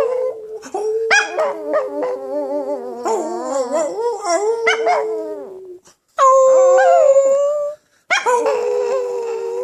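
A chihuahua howling in long drawn-out notes along with a person singing, the pitches wavering and sometimes two notes at once. The sound cuts off briefly twice, about six and eight seconds in.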